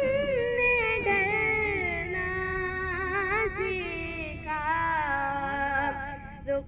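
Unaccompanied naat recitation: a solo voice singing long, wavering held notes.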